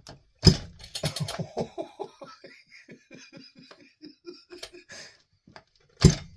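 A man laughing: a long run of giggling pulses that trails off over about four seconds. Loud sharp thumps come just after the start and again near the end.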